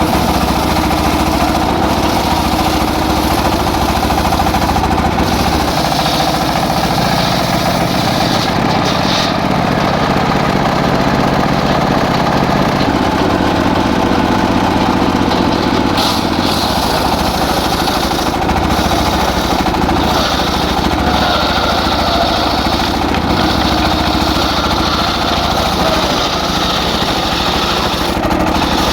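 Engine-driven circular sawmill running continuously while sawing teak, its sound shifting now and then as the load changes.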